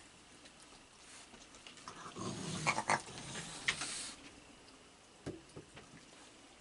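Raccoons feeding, one letting out a rough growl lasting about two seconds in the middle, with a few sharp clicks. A single faint click follows a couple of seconds later.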